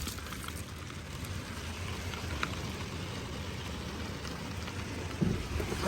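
Heavy rain pouring down on a truck camper, heard from inside as a steady hiss with scattered drop ticks. A brief low bump comes near the end.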